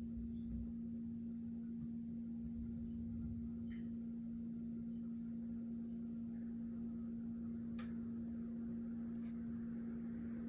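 A steady low hum with a faint low rumble beneath it, and two faint clicks near the end, about a second and a half apart.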